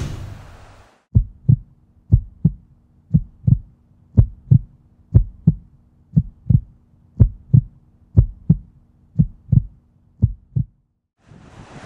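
Heartbeat sound effect: ten paired lub-dub thumps, about one pair a second, over a faint low drone. It stops about a second before the end.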